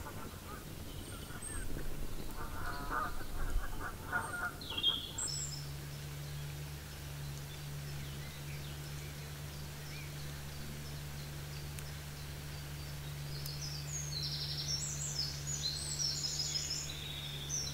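Birds calling outdoors: a run of honking calls in the first five seconds, then a steady low hum sets in, with high chirping birdsong near the end.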